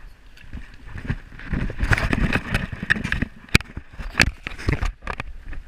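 River water splashing and sloshing as a fishing landing net is worked through the shallows, with a few sharp knocks in the second half.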